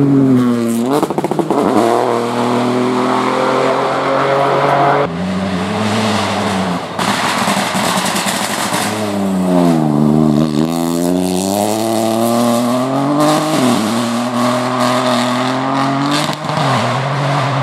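Peugeot 208 Rally4 rally car's three-cylinder turbo engine at high revs. The engine note drops and climbs again several times as the car lifts off and accelerates hard, in several separate passes.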